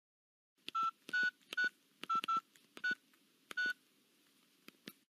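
Touch-tone keypad beeps of a mobile phone being dialed: about seven short two-note beeps at an uneven pace, followed by two faint clicks near the end. A number is being dialed to place a call.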